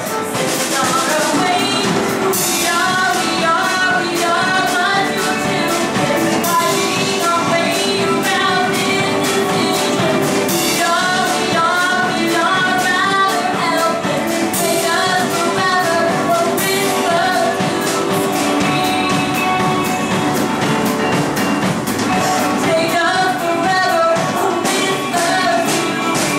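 Live rock song: a woman sings the lead over a band with a drum kit.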